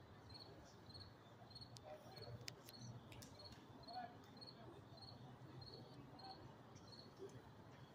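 A cricket chirping faintly and steadily, about two high chirps a second, over a low hum.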